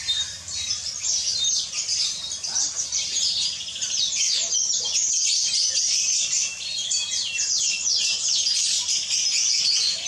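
A flock of small captive finches chirping and twittering, many short high-pitched calls overlapping without a break.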